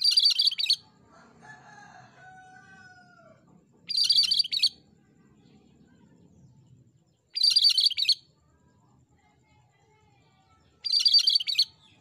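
Cream-striped bulbul (cucak Kerinci) singing: four short, loud bursts of high, rapid song, each under a second long and about three and a half seconds apart.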